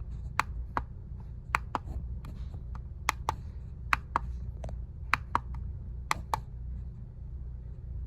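Buttons on a wireless-charging alarm clock clicking as they are pressed, about a dozen sharp clicks, mostly in quick pairs, at irregular intervals, stopping shortly before the end. A steady low hum runs underneath.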